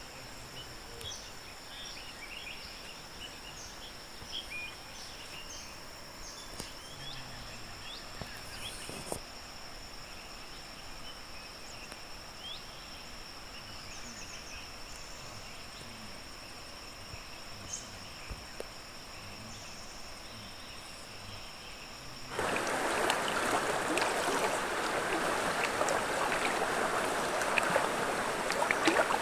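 Riverside ambience: a steady high-pitched insect drone with scattered short bird chirps over a soft rush of water. About 22 seconds in it cuts suddenly to a much louder rushing, splashing water noise.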